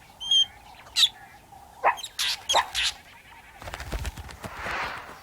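Fork-tailed drongo giving a run of short, sharp alarm calls, several sweeping down in pitch: a false alarm meant to scare meerkats off their food. From about three and a half seconds in, a rustling rush of noise takes over.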